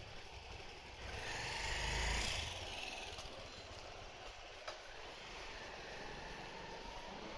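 A vehicle passing close by on the street: its rumble and tyre hiss swell and fade over about two seconds, with steady street background around it. A single sharp click about two-thirds of the way through.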